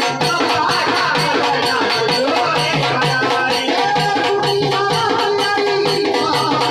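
Instrumental interlude of a Marathi devotional folk song: a quick, steady percussion beat with a shaker under a melody line.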